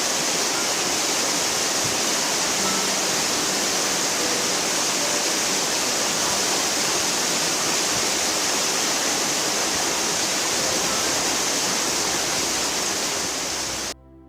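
Steady rushing of a waterfall: one constant hiss, loudest in the high treble, that cuts off suddenly near the end.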